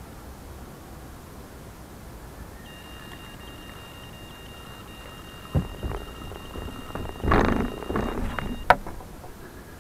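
Electronic carp bite alarm sounding a continuous high beeping tone as line is pulled off the rod: a fish has taken the bait. Heavy thumps on the wooden pier come in over it, and the alarm stops with a sharp click as the rod is taken up.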